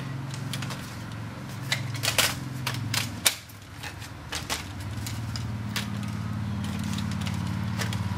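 Scattered light clicks and knocks of a laptop motherboard being handled and fitted into its case, over a steady low hum that drops out about three seconds in and returns a couple of seconds later.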